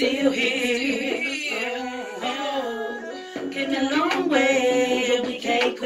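A woman singing, holding long notes that waver in pitch.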